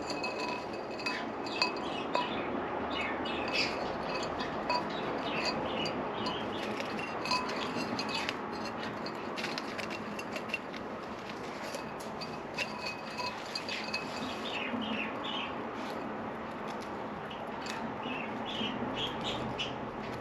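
Cockatiel giving many short, soft chirps, mixed with small clicks and taps as it rummages inside a vase.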